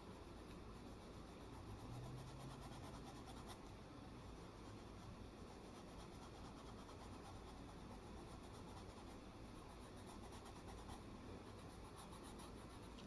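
Faint, rapid scratching of an oil-based colored pencil stroking across paper as an area is colored in.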